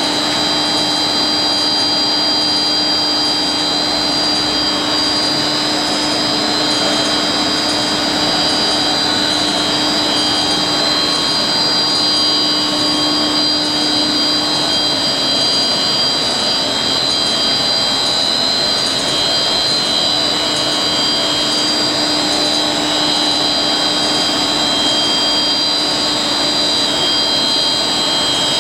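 ÖZM Ø60 HD 800 HDPE blown film extrusion machine running: a loud, steady machine noise with a high, constant whine over a lower hum.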